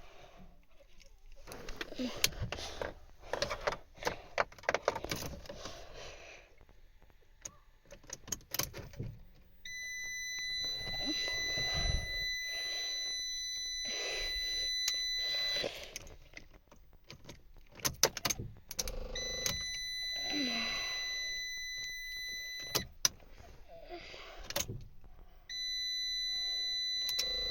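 Keys jangling and clicking, with a car's steady high electronic warning tone sounding three times, each for several seconds.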